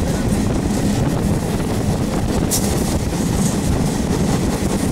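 Passenger train running along the line, heard from an open carriage window: a steady rumble of wheels on the rails, with one short sharp click a little past halfway.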